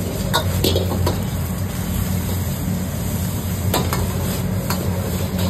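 Stir-frying in a wok: a metal ladle scrapes and clanks against the wok a few times while the food sizzles, over a steady low hum.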